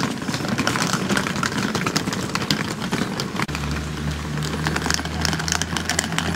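Rattling clatter of wheeled suitcases rolled over cobblestone paving. A steady low hum joins about halfway through.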